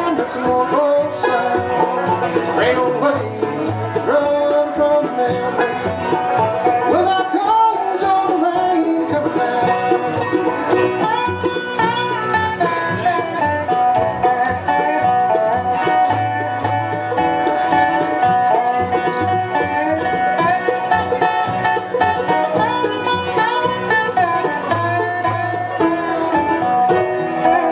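Live bluegrass band playing: banjo rolls and mandolin over upright bass, with resonator guitar and acoustic guitar, at a steady, driving tempo.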